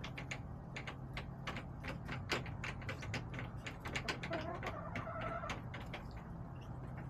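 Backyard hens pecking, their beaks tapping in quick, irregular clicks, with one hen giving a short, drawn-out call about four seconds in.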